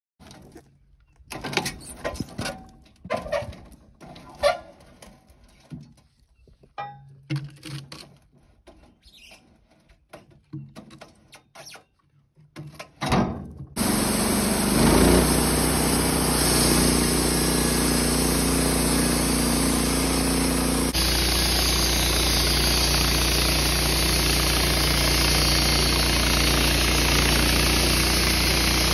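Scattered knocks and clicks, then, about halfway through, a steady engine running at an even speed, most likely the portable sawmill's engine.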